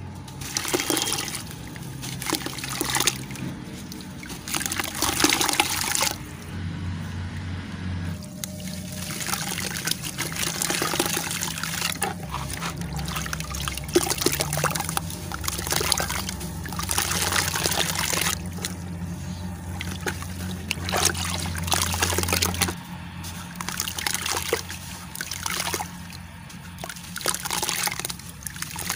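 A crunchy, gritty cylinder being crushed and crumbled by hand into a bucket of water: irregular grainy crunching and crackling mixed with wet splashing and trickling as the pieces and grit drop in.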